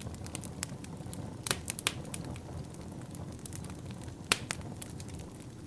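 Wood fire crackling in a fireplace: a steady low rumble of burning with scattered sharp pops and snaps, the loudest about one and a half seconds in, near two seconds and a little past four seconds.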